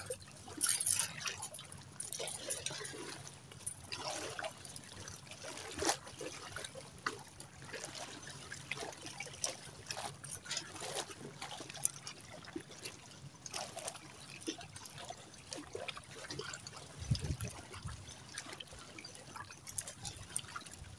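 Shallow seawater trickling and splashing lightly in irregular small bursts, with scattered small clicks and a brief low thump about 17 seconds in.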